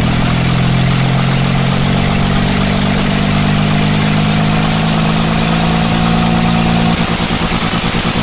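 BS6 engine idling with a misfire; about seven seconds in the running turns into an even, rapid pulsing beat.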